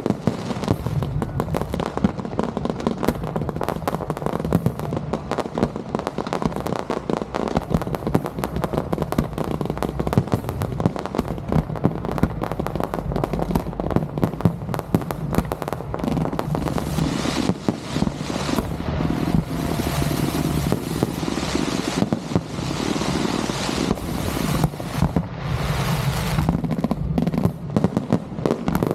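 Fireworks display going off in a dense, continuous barrage: rapid booms and crackling bursts, many per second, with no let-up.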